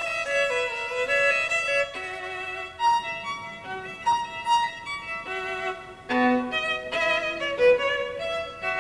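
Background music: a violin playing a melody of short, quickly changing notes.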